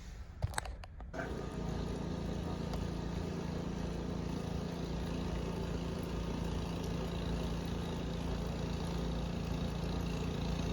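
An engine running steadily with a constant hum, starting abruptly about a second in after a few clicks.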